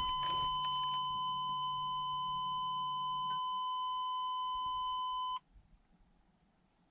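1994 Chevrolet Suburban's seatbelt warning chime sounding as the ignition is switched on with the engine off: one steady high beep lasting about five seconds, then cutting off suddenly. A low hum runs under it for the first three seconds and stops with a click.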